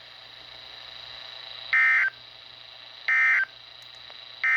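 Three short bursts of EAS digital data tones from a NOAA Weather Radio broadcast, about 1.4 seconds apart: the end-of-message code that closes the severe thunderstorm warning. Faint radio hiss and a thin steady high whine sound between the bursts.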